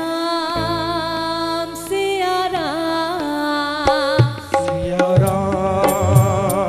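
Devotional bhajan music: a sung melody over a sustained drone, with drum strokes joining about four seconds in.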